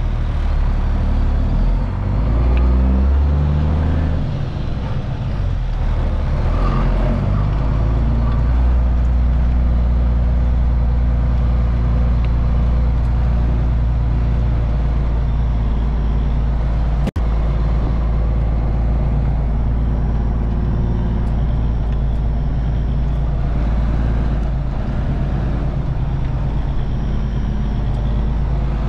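Cummins ISM inline-six diesel of a 2000 Freightliner FLD 112 single-axle semi, heard from inside the cab as the truck drives off slowly. The engine note rises and falls in steps in the first few seconds, then runs steady. The sound drops out for an instant about 17 seconds in.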